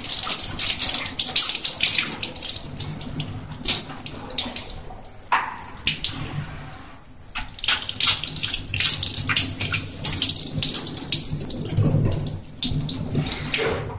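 Water running from a gooseneck tap into a stainless steel scrub sink and splashing off hands and forearms as the soap is rinsed off, with uneven splashes and a brief lull about halfway through.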